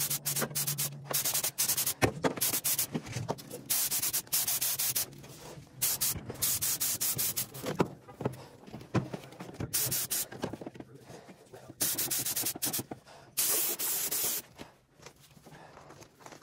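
Gravity-feed air spray gun hissing in short bursts, a fraction of a second to about a second each, as the trigger is pulled and released again and again while spraying epoxy primer.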